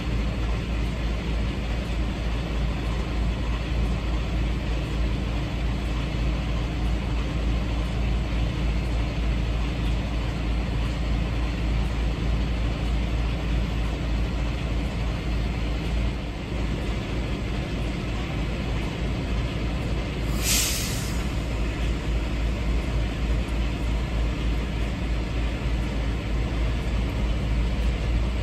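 Semi truck's diesel engine idling steadily with a deep, even rumble, and one short hiss of released air from the truck's air system about two-thirds of the way through.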